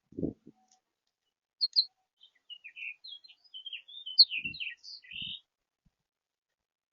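A songbird singing one long, varied warbling phrase of quick high notes, lasting about four seconds. There are a few soft low knocks, one just after the start and two near the end of the song.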